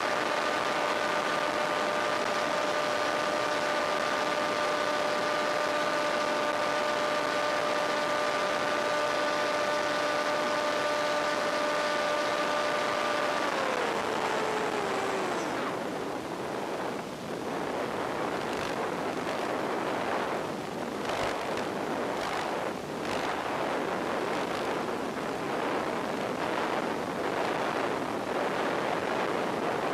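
A model plane's electric motor running steadily as a whine over a constant rushing hiss. About halfway through the motor winds down and stops. Only the rushing noise of the glide is left, rising and falling unevenly.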